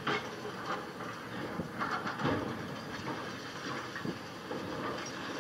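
Concrete being crushed and broken by a demolition excavator's hydraulic crusher jaws, with irregular crunches and knocks of breaking concrete and falling rubble over the steady noise of the machine.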